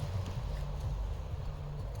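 Wind rumbling unevenly on the microphone, a low buffeting with no distinct events.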